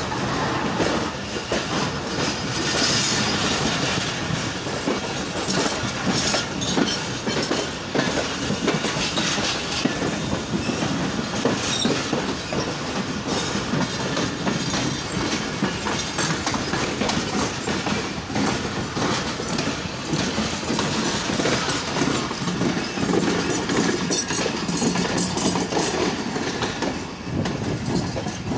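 Pakistan Railways passenger coaches rolling past at close range, their wheels clattering over the rail joints in a steady stream of clacks. The noise eases slightly near the end as the last coach goes by.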